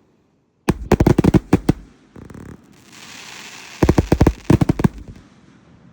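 Multi-shot consumer firework cake (LFG Doomsday) firing: a rapid volley of sharp bangs starting about a second in, a stretch of hissing, then a second rapid volley of bangs.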